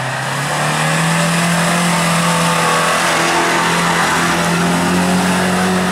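Opel Frontera SUV engine held at full throttle as it drives up a muddy trail, one steady high-revving note whose pitch creeps slowly upward. The vehicle passes close by about two thirds of the way through.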